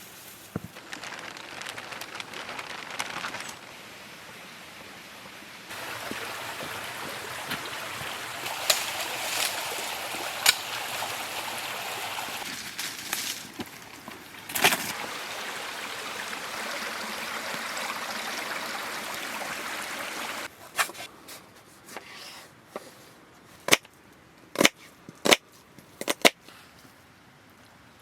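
Steady rush of a flowing stream, louder in some stretches than others, with scattered sharp clicks and knocks; in the last several seconds the water is faint and the clicks stand out.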